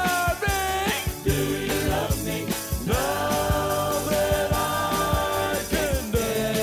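Rock-and-roll song played from a 7-inch vinyl single: drums keep a steady beat under long held notes. One note is held from about three seconds in until near the end, where the pitch slides down into another.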